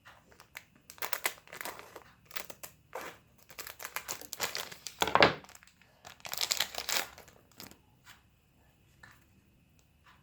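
Packaging of a new hair comb being torn open and crinkled by hand, in irregular rustling bursts with a sharp loudest rip about five seconds in, fading to a few light ticks near the end.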